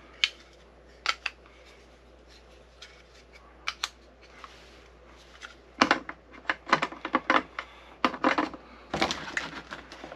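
AA and AAA batteries being pushed into the slots of a hard plastic KIWIFOTOS battery storage case and knocking against one another: sharp clicks and clatters, a few scattered ones at first, then coming thick and fast from about six seconds in.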